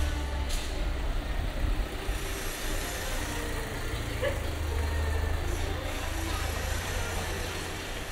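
City street ambience: a large vehicle's engine running with a steady low hum, with scattered voices of passers-by.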